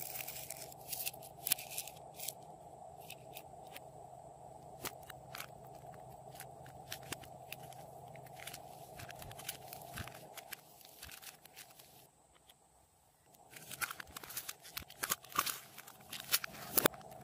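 Pink fluffy slime being grabbed and stretched by hand, crackling and tearing with many small pops. Near the end a pink clay block is handled in its clear plastic tub, giving a denser run of sharp clicks and crinkles.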